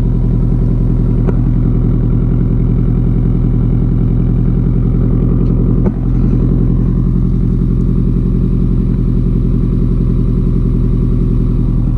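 2009 Subaru WRX's turbocharged flat-four engine idling steadily through a titanium Tomei Expreme Ti exhaust, with a brief dip in level about halfway.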